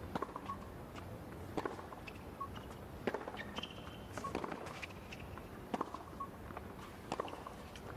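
Tennis baseline rally on a hard court: about six racket-on-ball strikes, evenly spaced roughly a second and a half apart, with short shoe squeaks between them.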